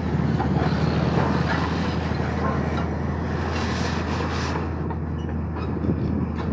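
Komatsu PC200-7 excavator's six-cylinder diesel engine running steadily, a loud low drone.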